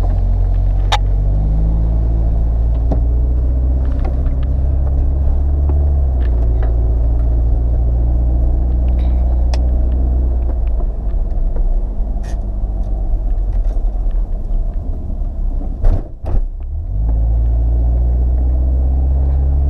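Mercedes SLK R170's engine with an aftermarket exhaust, heard from inside the cabin, pulling away under light throttle through the automatic gearbox, its low note stepping down in pitch at the shifts. About sixteen seconds in, a couple of sharp knocks and a brief drop in the engine sound, then a steady low drone.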